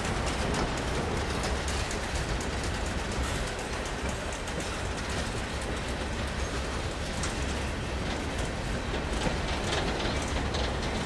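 Norfolk Southern coal train's hopper cars rolling past: a steady rumble with a continuous run of wheel clicks and clacks over the rail joints.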